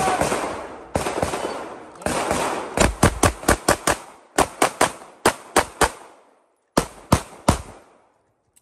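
Pistol shots fired by a competitor on a shooting stage: a few single shots, then fast strings of about seven, five and four shots, separated by short pauses as the shooter moves between positions.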